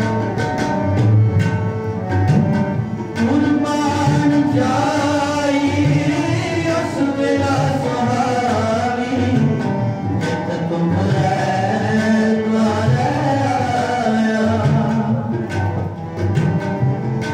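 Sikh kirtan: two harmoniums holding steady chords and melody, a man singing over them, and tabla strokes keeping time.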